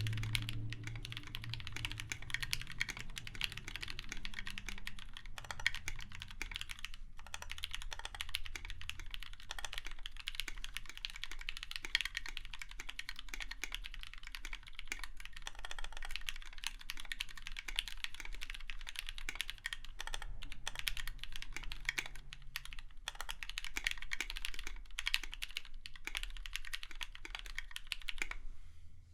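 Fast, continuous typing on a KBDFANS 5 Degree mechanical keyboard with lubed Gateron Yellow linear switches in an aluminium plate and blank keycaps, dense keystroke clacks with a brief pause about seven seconds in, stopping just before the end.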